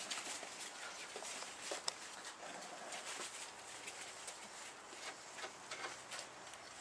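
A sleeping dog snoring, faint and irregular.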